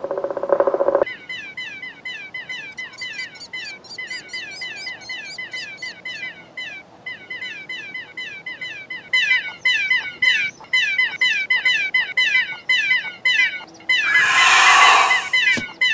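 Cartoon baby pterodactyl chicks cheeping: quick, high, falling chirps, several a second, in a long run. A short buzzy call opens it, and a loud harsh screech comes near the end.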